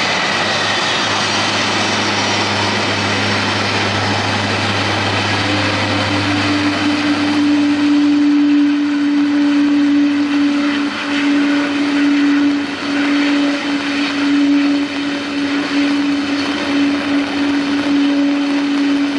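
Boeing 777 twinjet's engines winding down after landing on a wet runway, a slowly falling whine over the steady hiss of heavy rain and spray. After about six seconds a steady droning hum takes over as the airliner rolls out at low power.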